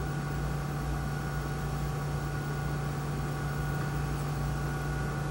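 Steady electrical hum with a few fixed tones over an even hiss, unchanging throughout.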